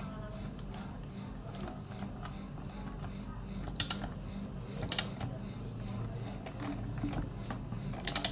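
Screwdriver working screws on a Stihl 440 chainsaw's engine housing: quiet turning and scraping with a few sharp metal clicks, the loudest about four, five and eight seconds in.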